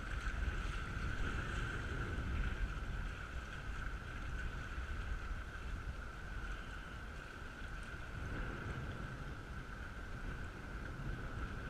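Wind rumbling on the microphone, with a steady high-pitched hum alongside it.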